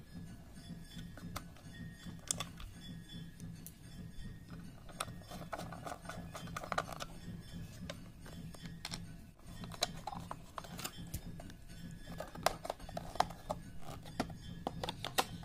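Scattered light clicks and scrapes of a screwdriver driving the mounting screws of a plastic bayonet lamp holder into a switch board, over a faint steady low hum.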